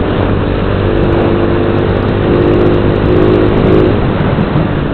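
Motorcycle engine running at a steady cruise, with the rush of wind and road noise over it.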